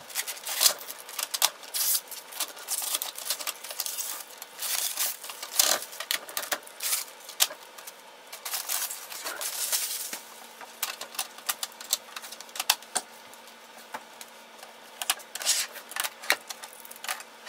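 Clear plastic wrap crinkling and crackling as it is peeled off a printer, with a dense run of irregular clicks and rustles, then orange shipping tape and packing pieces being pulled from the printer's body.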